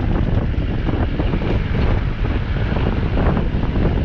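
Loud wind buffeting the microphone: a dense, gusting rumble with no clear pitch.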